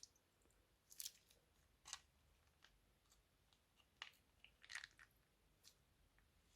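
Crunchy slime being handled, giving faint scattered crackles and crunches, roughly one a second, with a quick cluster near the end.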